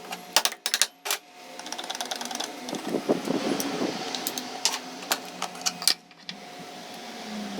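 Metal tools clicking and knocking in quick irregular runs as the hex bolts come out of a Honda XRE 300 engine side cover, over a faint steady hum.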